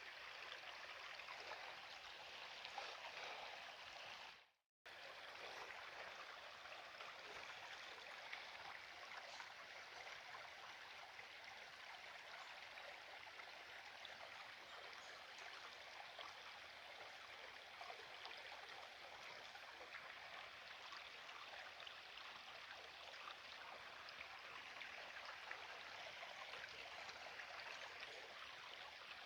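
Faint, steady trickle of a very small stream gently flowing, broken by a brief dropout about four and a half seconds in.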